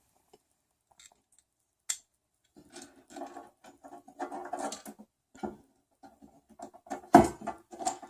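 M3x10 screws and plastic printer parts being handled and started by hand on a workbench: scattered light clicks and rattles, with one louder knock about seven seconds in.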